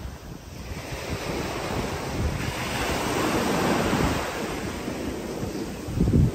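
Small sea waves breaking and washing up a sandy shore: one long wash swells and fades in the middle. Wind buffets the microphone throughout, loudest near the end.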